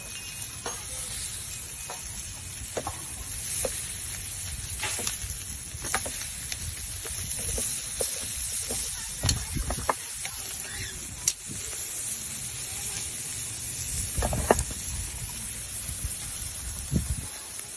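Meat sizzling on a hot stone grill bed over coals, a steady hiss, with a few sharp clicks and knocks of metal tongs against the stones and meat as the pieces are turned.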